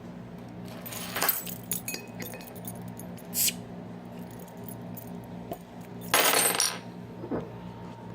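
A beer being opened and handled: scattered metallic clicks and clinks, a short hiss about three and a half seconds in, and a louder rushing burst lasting about half a second, about six seconds in.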